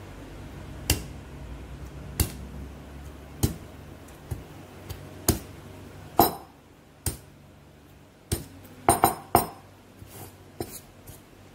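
The end of a heavy black cylindrical tool knocking down on garlic cloves on a plastic cutting board, crushing them. About a dozen sharp knocks, roughly one a second, with a quick run of three near the end, some with a brief ringing clink.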